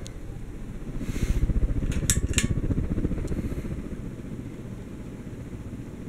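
Seagull Lighting Main St. ceiling fan running with a low, rapidly pulsing whoosh of air from the wood blades, louder about a second in. About two seconds in come two sharp clicks from the pull-chain switch as the schoolhouse-globe light kit is switched on.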